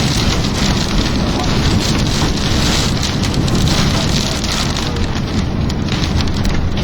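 Heavy rain pelting a vehicle during a severe thunderstorm: a dense, steady roar of drops striking the roof and glass.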